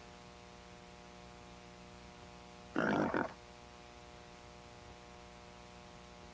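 Steady electrical mains hum on the soundtrack, with one short, loud vocal sound from the cartoon dog lasting about half a second, about three seconds in.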